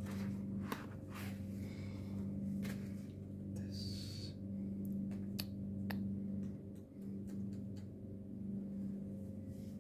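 Tissue paper rustling and a few light clicks and knocks as a laptop is slid out of its paper sleeve and lifted from its cardboard box, over a steady low hum.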